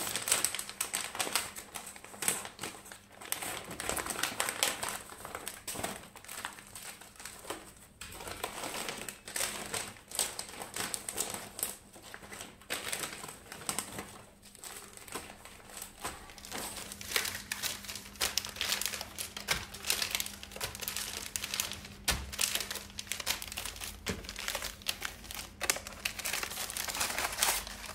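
Plastic packaging crinkling and rustling in irregular bursts as bags of beef-meatball noodles are handled. Their seasoning sachets and vacuum-sealed noodle pouches are sorted out by hand.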